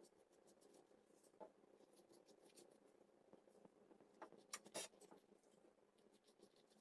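Near silence: faint room tone with a few soft clicks and light scratches, the loudest cluster a little past the middle.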